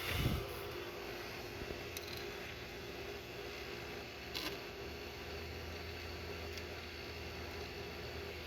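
A low thump just after the start and a few light clicks from small metal parts of an automatic transmission valve body being handled, over a steady background hum.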